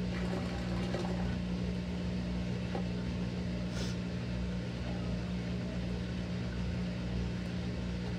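Maytag top-load washing machine in its spin cycle, humming steadily as the tub turns at a constant low speed without speeding up. One faint tick about four seconds in.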